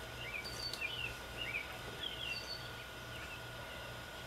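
Birds chirping, short calls that glide up and down, over a low hum that pulses about twice a second.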